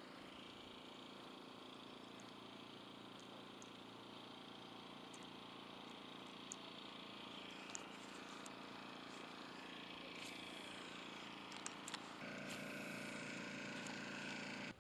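Distant boat motor, a faint steady hum that gets louder and higher about twelve seconds in, with a few faint ticks.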